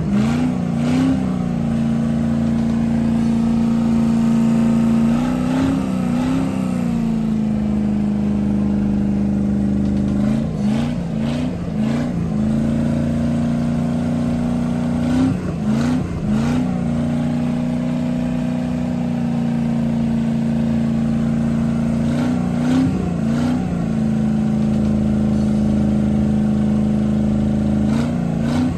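Freshly overhauled 454 cubic-inch (7.4 L) big-block V8 marine engine running at a steady idle, with short throttle blips every few seconds. Cooling water sprays out of its wet exhaust.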